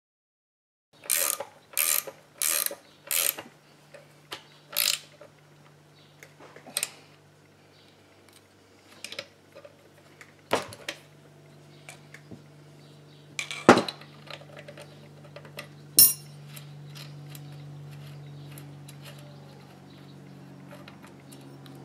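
Wrench and metal parts being worked on a chainsaw's clutch side. First comes a run of sharp metallic clicks, four about two-thirds of a second apart, then scattered knocks and clanks, the loudest near the middle. A low steady hum grows louder in the second half.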